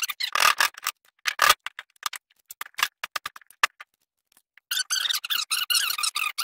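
Hammer striking a wood chisel into a wooden block, several sharp knocks in the first second and a half, then scattered lighter knocks and clicks as the wood is handled. From about two-thirds of the way in there is a dense scratchy rustle as hands rub together.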